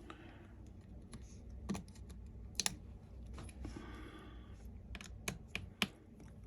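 Light, irregular clicks and taps of a small screwdriver and tiny screws against a MacBook Air's chassis as the screws holding the charging port are removed, with a brief scratchy scrape about four seconds in and several clicks close together near the end.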